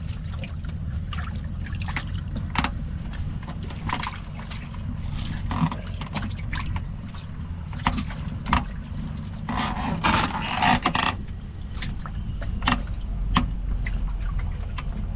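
A boat's engine drones steadily and low. Scattered knocks and scrapes sound over it, with a brief rush of noise about ten seconds in.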